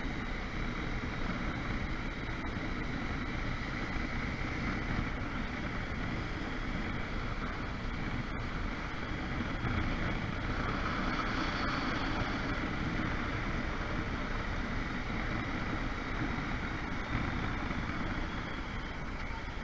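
Motorcycle riding at city speed: a steady rush of wind over the bike-mounted microphone mixed with engine and road noise.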